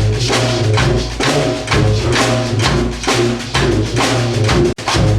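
Tuba playing a repeating low bass line over a steady percussion beat of drums and a wood-block-like click: the percussion-and-tuba opening groove of a rock tune for school band. The sound cuts out for an instant near the end.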